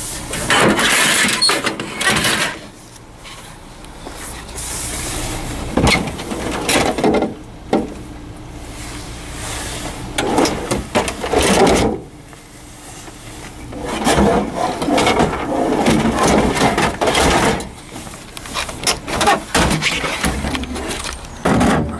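Sheet-metal computer cases and other electronic junk being shifted and pulled around in a dumpster: irregular scraping and rattling with scattered sharp knocks, in bouts with quieter pauses between them.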